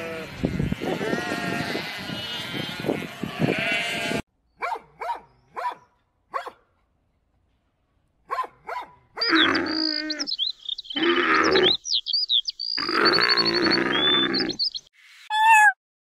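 A flock of sheep bleating, many voices overlapping. Then a puppy yipping and barking in short bouts, with birdsong behind, and near the end a kitten meowing in short, repeated calls.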